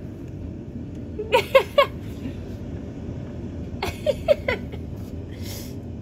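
Strong wind roaring steadily, low and heavy, from hurricane-force gusts. Two brief flurries of short, high calls rise over it, about a second in and again about four seconds in.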